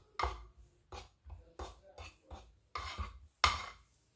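A spoon stirring dry bsissa flour with cocoa and sugar in a wooden bowl: a run of short scraping knocks against the bowl, about two a second, the loudest one near the end.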